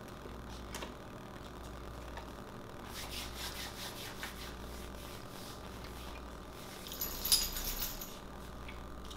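Palms rubbing together, a soft dry rub, loudest about seven seconds in, over a faint low steady hum.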